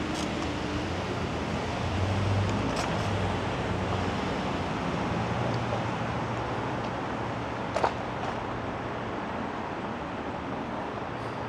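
Steady city street traffic noise with a low engine hum that swells and fades, and a single sharp click about eight seconds in.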